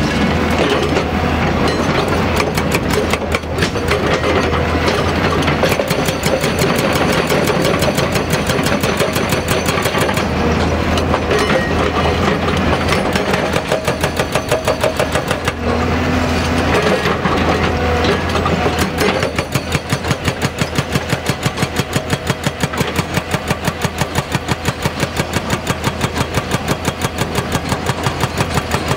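Hydraulic rock breaker (Hyundai HDB230) on a Hyundai 215 SMART Plus crawler excavator hammering, with rapid even blows at about six a second, most distinct in the second half, over the steady low hum of the excavator's diesel engine.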